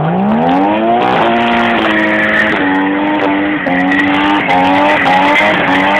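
Car engine revved up hard and held at high revs through a skid, its note dipping and recovering several times as the tyres spin and scrabble.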